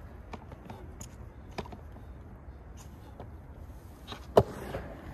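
Skateboard set with its tail on the coping of a concrete bowl, knocking lightly against it a few times, then one sharp clack about four and a half seconds in, over steady background noise.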